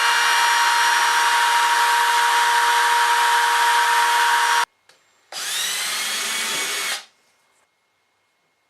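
Electric power tool motor running: one steady run of about four and a half seconds that stops abruptly, then a second short run of under two seconds that starts with a rising whine as the motor spins up.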